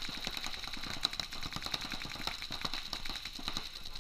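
Paintball markers firing across the field, rapid irregular strings of sharp pops, several a second.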